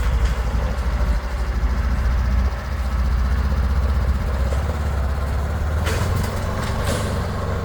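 A motor vehicle running with a steady low rumble, with a couple of brief clicks about six and seven seconds in.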